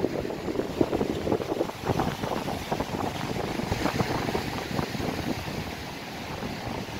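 Wind buffeting the microphone in uneven gusts over the steady rush of a rough sea, waves breaking and foaming against a seawall.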